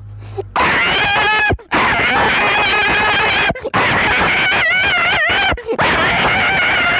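A man's vocal imitation of a dog yelping in pain after being struck with a stick or stone: four long cries, each wavering in pitch.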